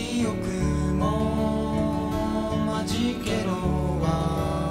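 Two acoustic guitars strummed and picked together in a live acoustic duo song, with a male voice singing over them.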